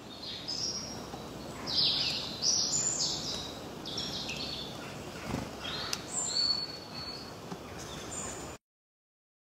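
Birds chirping in short, repeated high calls over a steady outdoor background hiss; the sound cuts off suddenly near the end.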